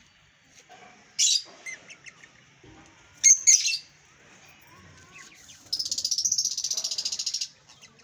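Rosy-faced lovebird calling: short shrill calls about a second in and again midway, then a fast rattling chatter lasting nearly two seconds near the end.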